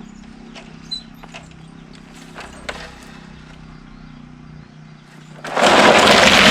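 An engine running steadily with a few sharp knocks. About five and a half seconds in, a sudden loud crashing and cracking of rock breaks in and keeps going.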